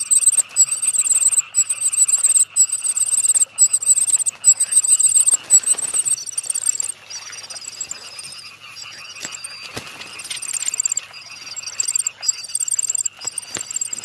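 Common cuckoo chick begging in a reed warbler's nest: very high, piercing calls in quick bursts about once a second, loudest in the first half, softer in the middle and rising again near the end. One chick calls as loud as a whole brood of four reed warbler chicks, and the louder and longer it calls, the more it is fed.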